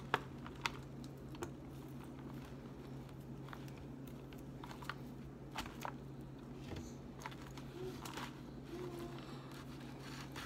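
Scattered light clicks and ticks of a plastic fork against a clear plastic salad container as lettuce is forked and picked at, over a steady low hum.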